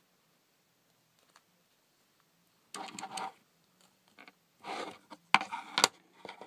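Small plastic figure parts and a clear plastic display stand handled on a table: a few short rustling, scraping bursts, then two sharp clicks a little past the middle.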